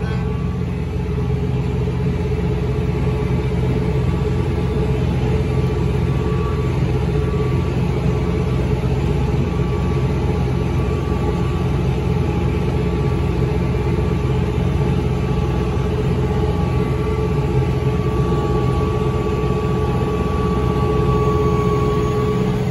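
A vehicle engine running steadily while driving: a low rumble with a steady whine above it.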